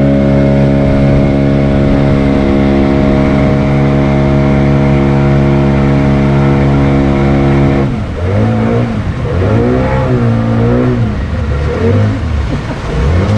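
River passenger barge's engine running at a steady speed. About eight seconds in, the engine speed starts rising and falling repeatedly, revving up and easing off several times.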